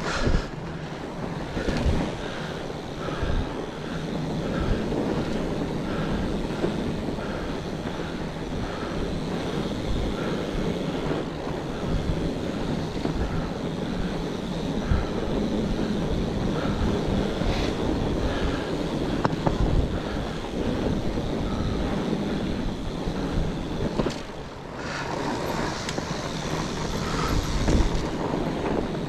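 Fat bike being ridden along a forest trail: continuous rolling noise from the wide tyres, with wind buffeting the microphone and frequent low thumps from bumps in the trail.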